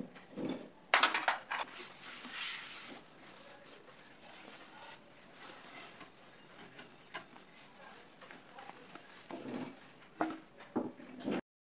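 Cloth and hands working over a wooden sewing machine table: a sharp knock about a second in, a brief rustle of cloth after it, then a few soft knocks near the end before the sound cuts off.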